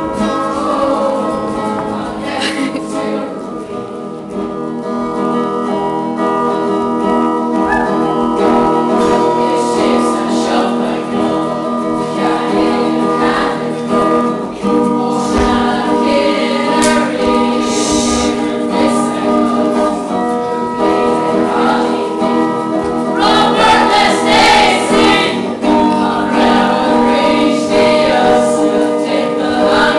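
A group of voices singing together as a choir, holding long chords, growing louder for a few seconds near the middle of the passage.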